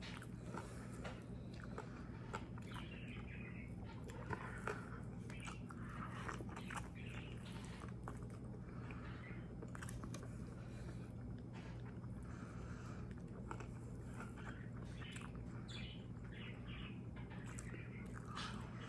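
A person biting and chewing a protein wrap rolled around asparagus: repeated mouth sounds and small clicks throughout, over a steady low hum.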